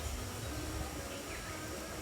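Outdoor ambience with a low rumble and one brief, high downward chirp of a small bird a little past halfway.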